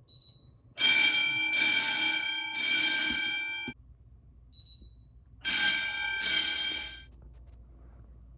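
Wheelock motor fire alarm bell ringing during a fire alarm system test, in two bursts: about three seconds, then a pause, then about a second and a half.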